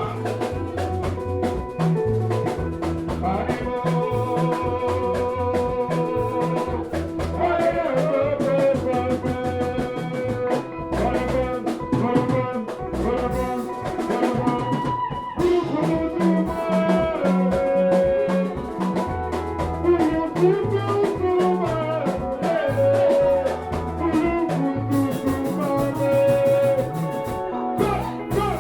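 Upbeat dance music with a steady drum beat, bass line and horns playing.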